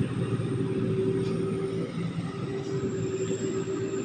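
Sakpattana SS-300 combine harvester running steadily while harvesting rice: a diesel drone, reported as a Hino J08C, with a thin, steady, high turbo whistle over it.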